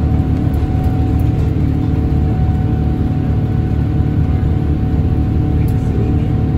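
Cabin noise of a Boeing 787-8 climbing after takeoff, its Rolls-Royce Trent 1000 engine running at high thrust: a steady, loud, deep roar with a faint steady whine above it.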